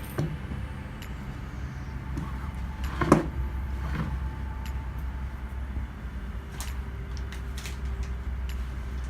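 Steady low machine hum with a few short clicks and knocks from handling; the loudest knock comes about three seconds in.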